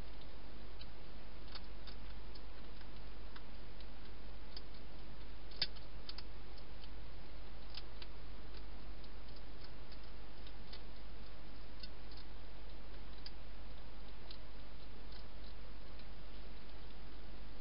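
Hedgehog eating inside a plastic feeding box: a scatter of small irregular clicks from its chewing, one louder click about six seconds in, over the steady low hum of the camera.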